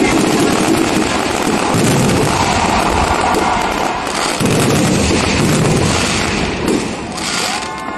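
Fireworks finale barrage: many shells bursting at once in a dense, continuous run of overlapping bangs, booms and crackle, easing slightly near the end.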